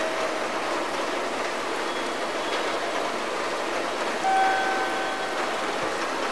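Railway station platform ambience between announcements: a steady rushing hiss of background noise, with a brief faint pitched tone about four seconds in.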